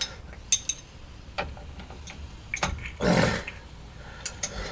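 Scattered sharp metal clinks as an air impact wrench's socket and extension are worked onto the rear driveshaft flange bolts, with one short, louder rough burst about three seconds in.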